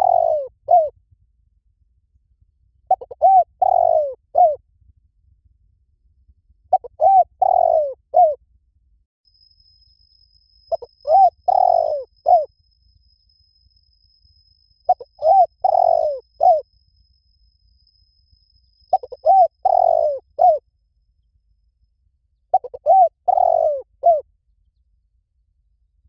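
Spotted dove cooing: a short phrase of three or four coos, repeated about every four seconds.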